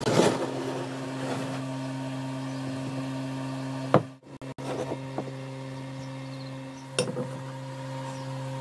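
A steady low electrical hum, broken by a sharp knock about four seconds in and another about three seconds later, as a rectangular steel tube is set down on a wooden table.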